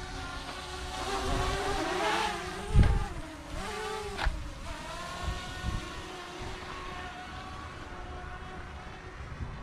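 DJI Mavic Mini quadcopter drone running, its propellers giving a whine whose pitch wavers up and down for the first few seconds, then settles into a steadier hum. A loud low thump comes about three seconds in.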